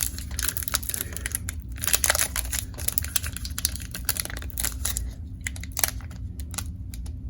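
Trading-card pack wrapper being crinkled and torn open by hand: irregular crackles and clicks, thickest in the first couple of seconds and sparser after.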